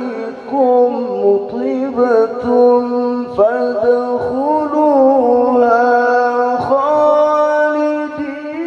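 Male Quran reciter chanting tilawah, holding long ornamented notes with quick trills and slides and a few brief breaks. His voice is hoarse and forced.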